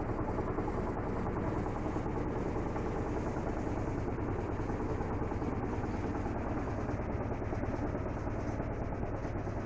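Electrolux LT12F washing machine spinning a full load in its intermediate spin before the first rinse: a steady motor hum with drum rumble.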